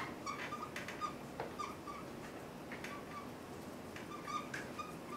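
Dry-erase marker squeaking across a whiteboard while words are written: a run of short, high squeaks in irregular strokes, with a few light taps of the marker tip.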